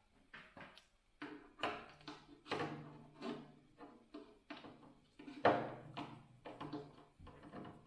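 A string of light metallic clinks and knocks, irregularly spaced, as a rivet squeezer, its die and a feeler-gauge stack are handled against the hinge knuckles and aluminum skin of an RV-7 panel.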